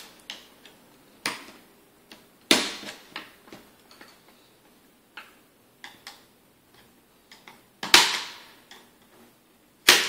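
Screwdriver clicking and knocking against an HP ProBook 4515s laptop's display hinge and plastic case as the taped-down hinge is levered free: scattered sharp clicks and snaps, the loudest about eight seconds in and again near the end.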